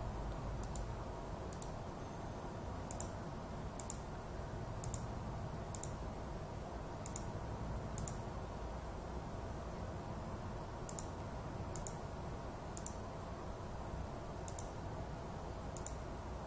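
Computer mouse button clicking about once a second, with a pause of about three seconds in the middle, as points are set one by one in embroidery digitizing software. A faint steady hum lies underneath.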